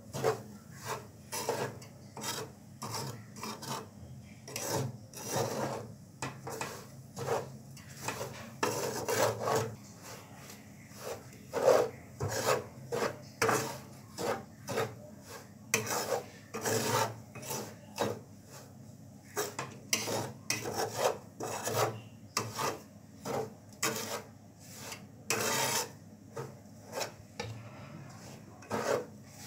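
Flat metal spatula scraping and turning dry semolina around a black pan, in a continuous run of short, irregular scraping strokes, roughly one to two a second.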